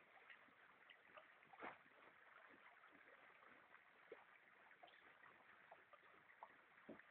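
Near silence: faint lapping of water against a small boat's hull, with scattered soft ticks.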